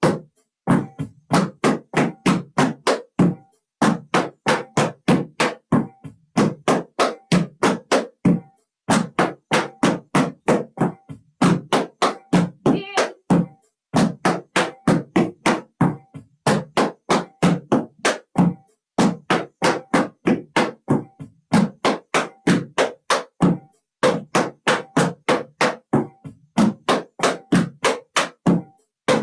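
Metal taps on tap shoes striking a plywood tap board in quick, even single taps, about four a second, in short runs with brief pauses between them: a tap-dance singles drill.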